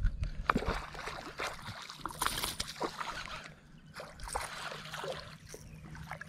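Intermittent rustling and clicking from handling a baitcasting rod and reel right at the camera. The clicks and rustles come in scattered bursts, the densest about two seconds in and again about four seconds in.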